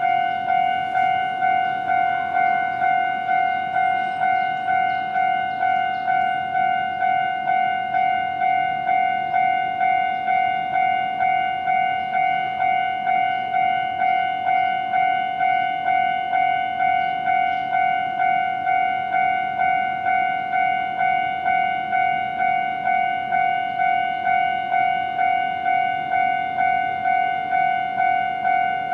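Japanese railway level-crossing warning bell ringing steadily, one ringing tone struck about one and a half times a second.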